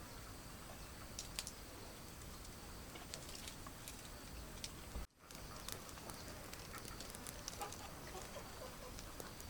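Faint poultry clucking over rustling and small scattered clicks, broken by a brief dropout about five seconds in.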